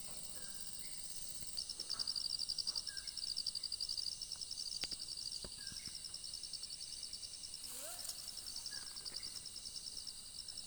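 Insects trilling in a high, rapidly pulsing drone over a steady high hiss, getting louder about a second and a half in, with occasional faint bird chirps.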